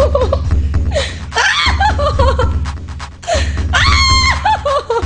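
A woman's high, held scream that falls away at its end, about three and a half seconds in. Bursts of wavering laughter come before and after it, over a low droning music bed.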